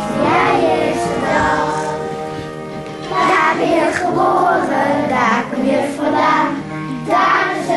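A group of children singing a song together with instrumental accompaniment; the singing eases off briefly about halfway through, then comes back in.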